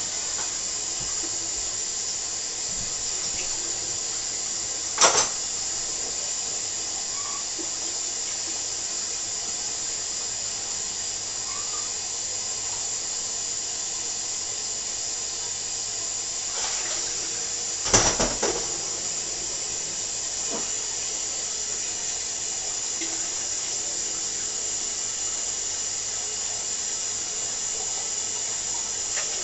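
A steady, even watery hiss in a kitchen, broken by two sharp clinks, one about five seconds in and one near eighteen seconds.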